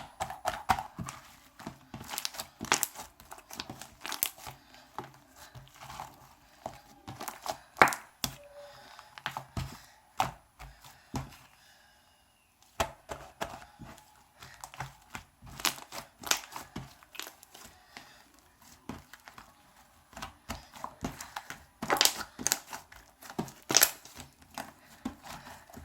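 Hands kneading and stretching a shaving-foam slime, giving irregular sticky clicks, pops and crackles, with a brief pause about twelve seconds in. The slime is stiff and tears apart rather than stretching.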